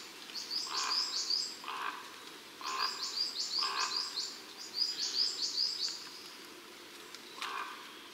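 A songbird singing in the forest: phrases of quick, high, repeated chirping notes, several times over. Under it are soft rustling steps through leaf litter, about one a second.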